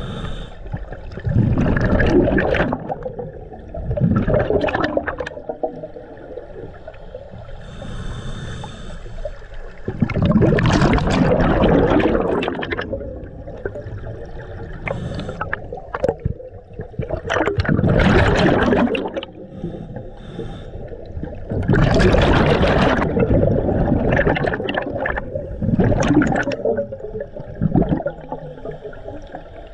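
Scuba diver breathing through a regulator underwater: loud bursts of exhaled bubbles every few seconds, with fainter hissing inhalations between them.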